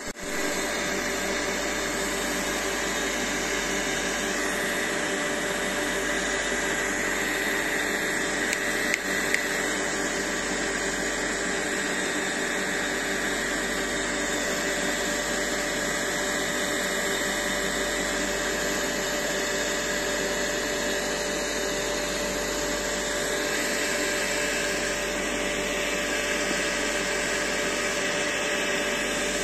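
Electric water pump motor running with a steady whirr and hum. A couple of light knocks come about nine seconds in.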